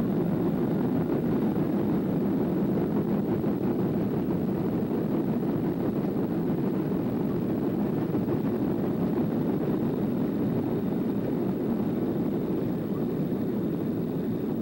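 Steady low rumble of a jet airliner's engines and airflow, heard inside the cabin as the plane rolls along the ground.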